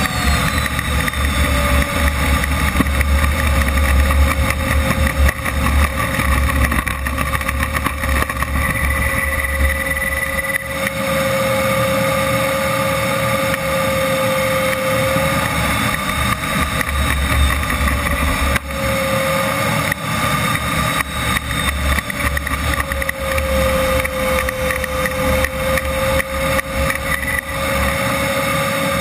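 RC model jet's turbine engine running at idle as the Comp-ARF Flash taxis, heard from a camera mounted on the airframe: a steady whine whose pitch drifts a little up and down over a constant rushing noise and low rumble.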